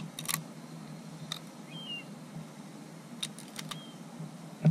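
Cooked Dungeness crab shell cracking between teeth as the elbow section is bitten open: a few sharp cracks, with a quick cluster of them about three seconds in, over a steady low hum, and a low thump at the very end. Faint bird chirps are heard now and then.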